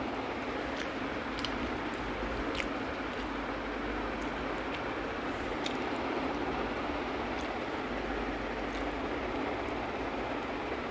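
Hand-eating sounds: fingers working rice on a banana leaf, with chewing and scattered small clicks and smacks, over a steady background hiss.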